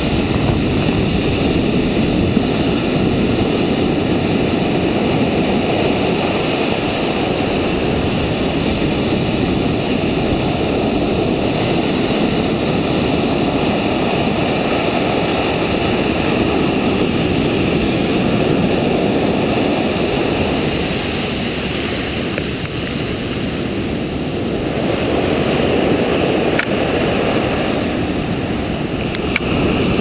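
Ocean surf breaking and foam washing up the sand at the water's edge: a loud, steady rush of water that eases off for a few seconds about two-thirds of the way through, then builds again.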